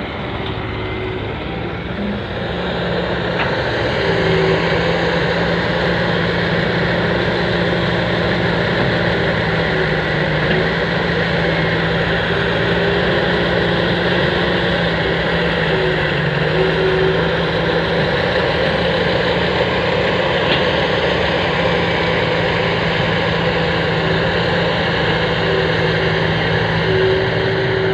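Fiat-Hitachi excavator's diesel engine running steadily, getting louder about four seconds in and holding there.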